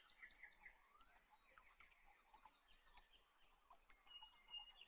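Faint birdsong: many quick chirps and short trills, with a brief held whistle about four seconds in.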